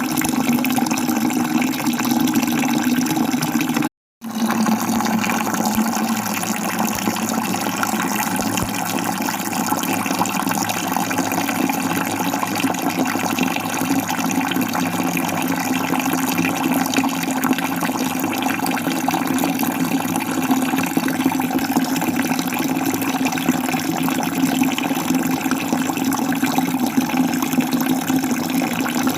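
Falling water rushing steadily, as from a waterfall. About four seconds in it cuts out completely for a fraction of a second, then resumes with a slightly different tone.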